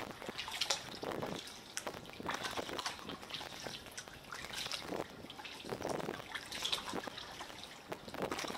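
Water lapping and dripping around a kayak in small, irregular splashes, roughly one a second.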